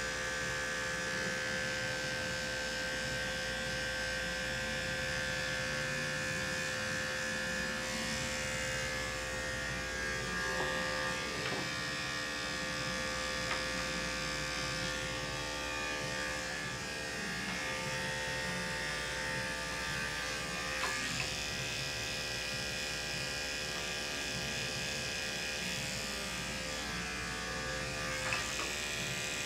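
Corded electric dog-grooming clippers running steadily, a constant buzz with an even hum, as they are passed over a small dog's face and head to trim the hair.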